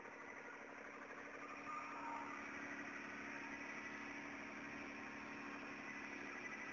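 Truck-mounted bitumen emulsion sprayer with compressor running: a steady engine hum that gets a little louder about two seconds in.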